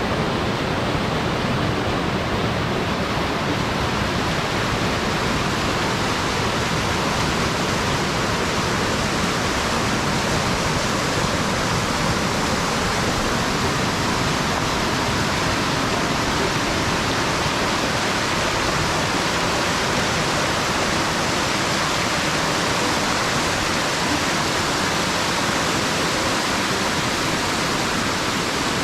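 Mountain creek cascading over rocks: steady, loud rushing water.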